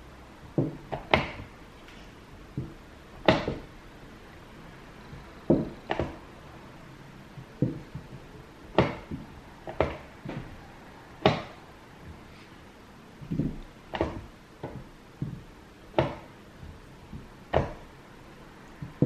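Weighted plastic chess pieces set down hard on a roll-up board over a wooden table, and the chess clock's button slapped after each move, in quick bullet-chess play. It is an irregular series of sharp knocks, roughly one every second, sometimes two in quick succession.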